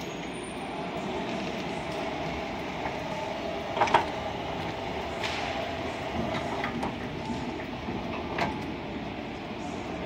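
Electric sliding-gate operator running steadily as the gate travels. A sharp knock comes about four seconds in and a lighter one near the end.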